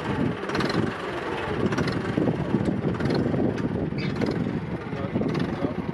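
Tractor engine running with a steady low rumble.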